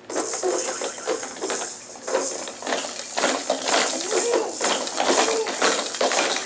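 Plastic toys on a Fisher-Price baby jumper's tray rattling and clacking as a baby bats at them and bounces: a quick, irregular run of clicks and jingles.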